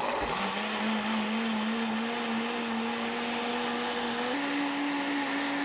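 Electric countertop blender running, puréeing fresh corn kernels with milk. Its motor hum holds steady, then steps up in pitch about four seconds in.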